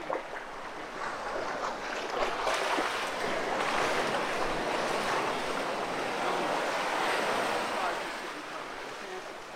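Ocean surf washing over the shallows: a wave rushes in and swells to a steady hiss over a few seconds, then fades about eight seconds in.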